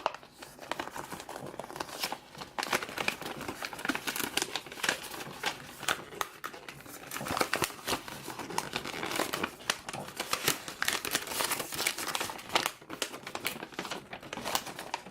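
Packaging crinkling and rustling as a trading card starter deck's contents are taken out and handled: a steady run of small irregular crackles.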